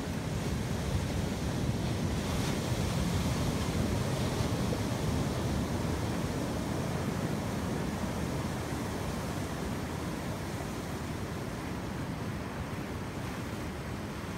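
Ocean surf washing onto a beach as a steady rushing wash that swells a little a few seconds in and then eases, with wind rumbling on the phone's microphone.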